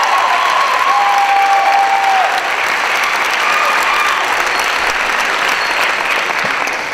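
Large audience applauding at the end of a stepping routine, a dense, steady clapping with a few shouts from the crowd, easing off slightly toward the end.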